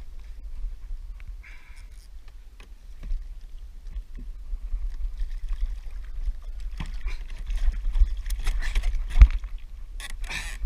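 Wind rumbling on the camera's microphone, with water splashing and scattered knocks of fishing gear against a plastic kayak as a hooked fish is lifted from the water. The loudest knock comes about nine seconds in, and a short burst of splashing follows near the end.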